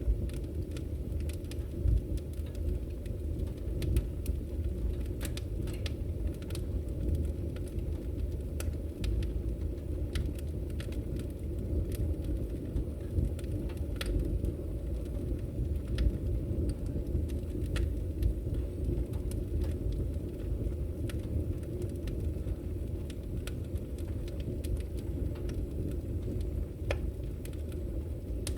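Firewood burning with a steady low rumble and scattered crackles and pops, a few of them sharper and louder.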